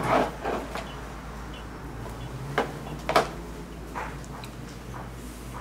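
Small handling sounds of fly tying: thread being wound onto a hook held in a vise, with a few light clicks and taps of the bobbin and tools, two sharper ones about half a second apart midway through.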